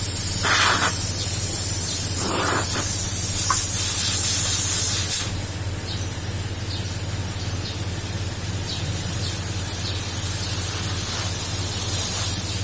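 Compressed air hissing as it is blown into a dented exhaust muffler to push the dent out, over a steady low hum. The hiss is strongest for the first five seconds, then drops to a softer level.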